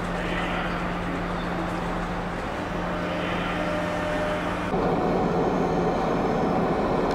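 Railway station ambience under a large train shed: a steady low hum and a wash of noise from the trains and platforms. About two-thirds of the way through it gets louder, with a thin high whine added.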